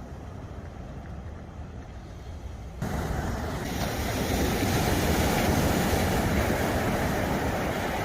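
Sea surf: a low rumble for the first few seconds, then, about three seconds in, an abrupt change to a louder rushing hiss of breaking waves that swells and stays.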